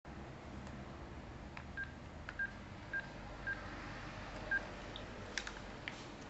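Telephone handset keypad beeping as a number is dialled: five short beeps at one pitch, about half a second apart. A few sharp clicks follow near the end.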